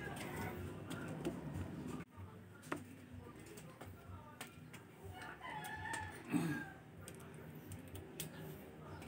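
Faint chicken calls, with a few light clicks and a low steady hum underneath.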